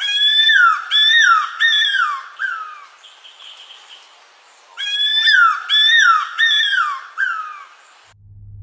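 Cuckoo-roller calling: two series of about four loud, whistled notes, each swelling and then slurring down in pitch, with a pause of about two seconds between the series. The call sounds to many people like a crying dog.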